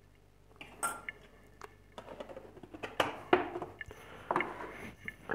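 A teaspoon and a small stainless-steel cezve (Turkish coffee pot) being handled: scattered sharp metal clinks and knocks. They start with a single click about a second in and come thicker and louder in the second half.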